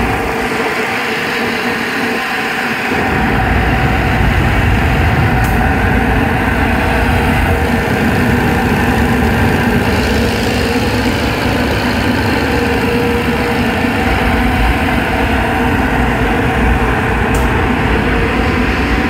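Power Blast 2 HP dust collector running, a steady motor hum and rush of air; a deep rumble joins about three seconds in.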